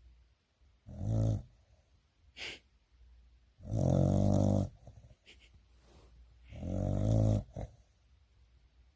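Dog snoring in its sleep: three deep, rattling snores about three seconds apart, the middle one the longest.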